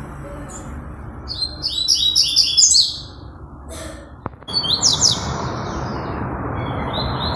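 A songbird singing phrases of quick, repeated high chirping notes: a phrase about a second in, a short pause, a second phrase, then more notes starting near the end, over steady background noise.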